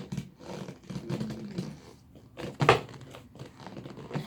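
Chair parts being forced together: two loud knocks, one about two and a half seconds in and one at the end, after a low wavering vocal sound.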